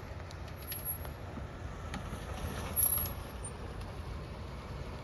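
Mercedes-Benz ML 320 SUV driving off-road: a steady low rumble of engine and tyres, with a few light clicks in the first second and one louder knock about three seconds in.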